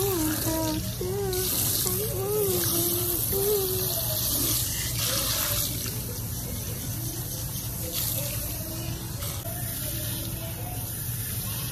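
Salon shampoo-bowl hand sprayer running, water spraying onto hair and into the basin as hair dye is rinsed out. A voice hums over it for the first few seconds.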